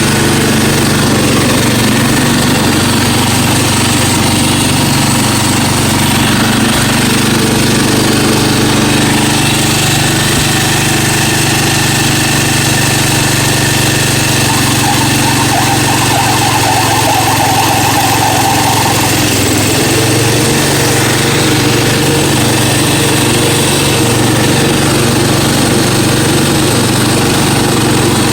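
The 1970s Briggs & Stratton engine of a 1972 Bradford Stinger riding mower running steadily. Its note shifts slightly about two-thirds of the way through.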